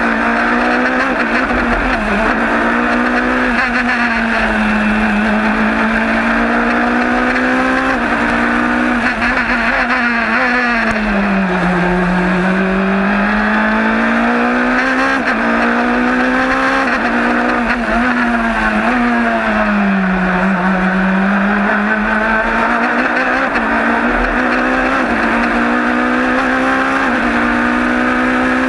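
Norma M20FC sports prototype's engine at racing speed, heard from inside the open cockpit: the note climbs through the gears, drops twice under braking for corners, about 11 and 20 seconds in, then rises again.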